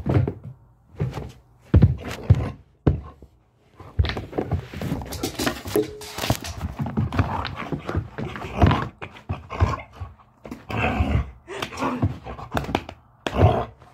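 A husky in rough play, lunging and bounding close by: a string of thumps and knocks, with bursts of the dog's own vocalizing and panting between them.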